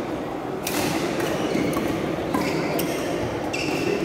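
Badminton rally: several sharp racket strikes on the shuttlecock and short squeaks of players' shoes on the synthetic court, over steady background hall noise and spectator chatter.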